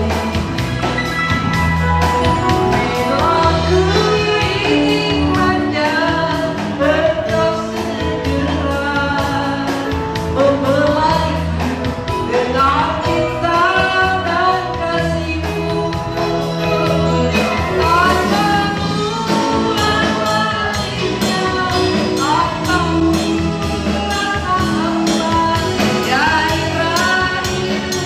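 Music with a singing voice over a steady bass line and beat.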